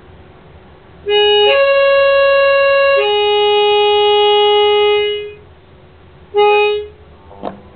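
Harmonica imitating a diesel locomotive's two-tone horn: a short low note, a higher note, then a long low note, followed a second later by a brief low toot. A faint click comes near the end.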